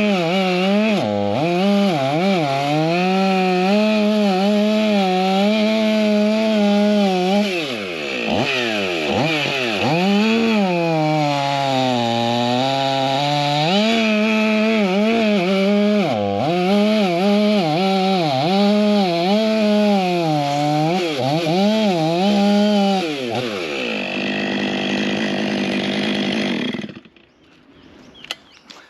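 Stihl MS 500i fuel-injected two-stroke chainsaw cutting through a hardwood log at full revs, its engine note dipping and climbing back several times as the chain loads up in the cut and frees. Near the end the note drops and the saw stops, about 27 seconds in.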